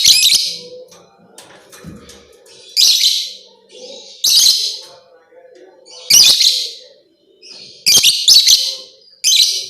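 Lovebird singing in loud, high chattering bursts, about seven short phrases of roughly half a second each, a second or two apart.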